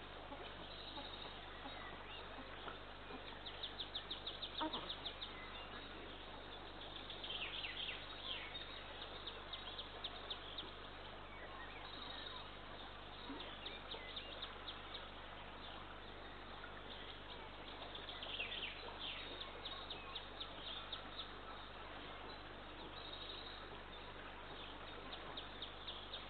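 Birds calling over a steady hiss: a rapid, loud trill about four seconds in, short downward-sweeping calls a few seconds later and again near the middle, and fainter chirps and trills between them.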